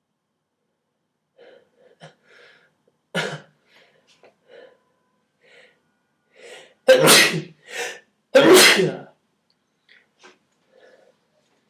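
A person sneezing: soft catching breaths and a short sharp burst about three seconds in, then two loud sneezes about a second and a half apart.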